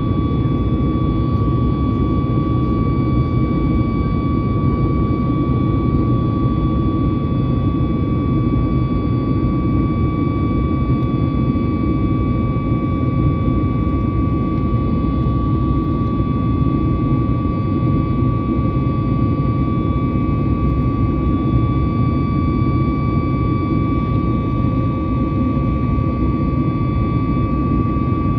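Boeing 737 MAX's CFM LEAP-1B turbofan engines running at a steady setting: an even low rumble with a steady whine on top, unchanging throughout.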